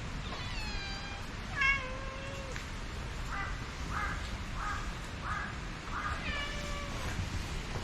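Cat meowing: three long meows that fall in pitch, with a run of five short calls in between, over a steady background hiss.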